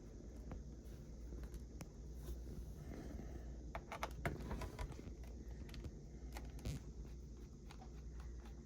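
Faint, scattered small clicks and ticks from handling a precision screwdriver set and its bits, with a quick cluster of clicks about four seconds in and another near seven seconds, over a low steady hum.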